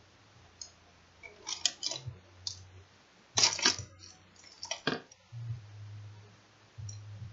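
Small metal clicks and taps of screws and a screwdriver being handled while screws are refitted into a laptop's screen assembly. The clicks come in short clusters, loudest about halfway through, over a faint low hum that comes and goes.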